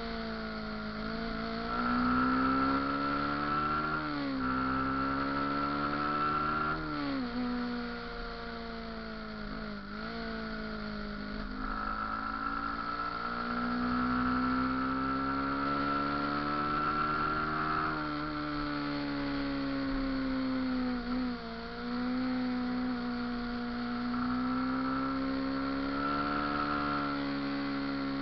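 Motorcycle engine running under way, its pitch climbing slowly and then dropping sharply a few times as the throttle is rolled off and on, with a steady high whine over it.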